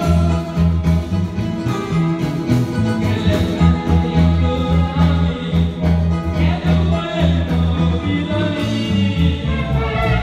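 Loud live Guatemalan marimba band music with a heavy, steady bass beat and keyboard, played for dancing.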